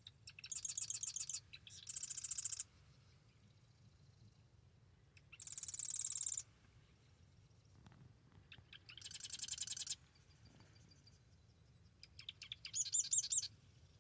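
Marsh wren singing five songs, each a rapid rattling trill about a second long. The later ones are led in by a few short ticking notes.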